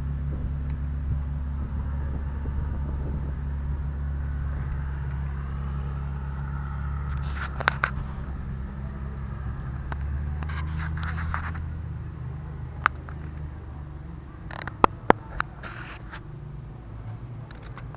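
Fordson Major diesel tractor engine running steadily, growing gradually quieter in the second half. A few sharp clicks and short scraping sounds come over it in the middle and near the end.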